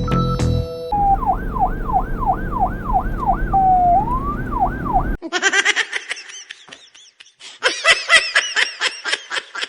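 Briefly some music, then a fake police siren: an electronic yelp sweeping rapidly up and down about three times a second over a low rumble, which cuts off suddenly about five seconds in. After that comes quick, high-pitched laughter.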